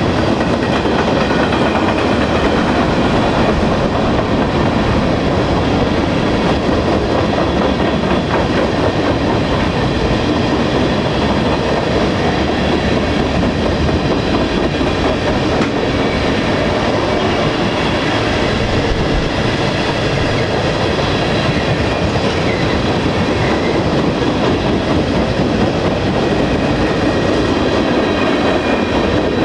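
Freight cars of a manifest train rolling steadily past, steel wheels running on the rails. The cars are covered hoppers, then tank cars and bulkhead flatcars.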